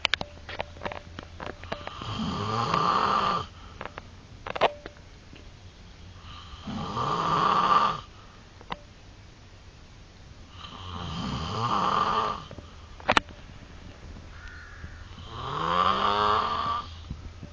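A man snoring heavily: four long snores about four seconds apart, each lasting a second or more. A few sharp clicks fall in the quiet between them.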